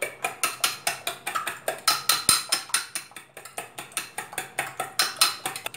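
Fork beating eggs and milk in a stainless steel bowl: quick, even clicks of the metal fork against the bowl, about six strokes a second, as the mix is whipped frothy.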